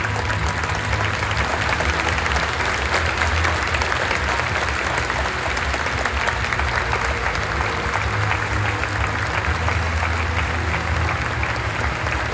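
Large stadium crowd applauding steadily, with music playing underneath.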